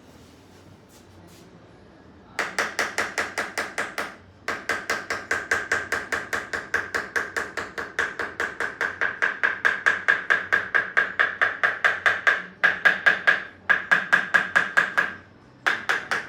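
Rapid rhythmic tapping, about five or six sharp strikes a second, in four runs broken by short pauses.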